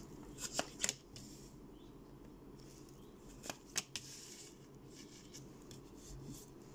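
Tarot cards being drawn from the deck and laid down on a table: faint sliding and rustling of the cards, with two pairs of sharp card snaps about three seconds apart.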